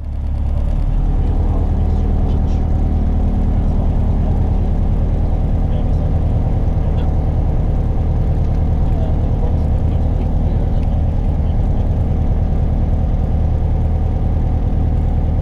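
Piper PA-28 light aircraft's piston engine and propeller running steadily, a loud even drone heard from inside the cockpit.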